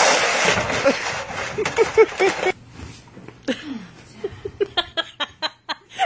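A plastic sled scraping across an icy driveway, fading out within the first second, followed by a person's voice. After a cut, a person laughs in quick repeated bursts over the last second and a half.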